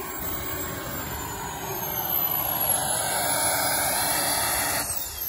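Small gas turbine of a 1/5-scale BVM F-16 model jet running as it taxis, a steady rush with a high thin whine. Near the end the rush drops off and the whine starts falling in pitch as the turbine winds down.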